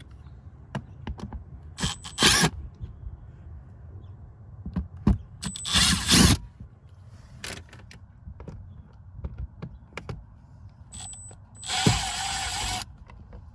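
Power drill run in three short bursts, about 2, 6 and 12 seconds in, with a high whine, backing out T15 Torx screws from a car's under-dash panel. Small scattered clicks fall between the bursts.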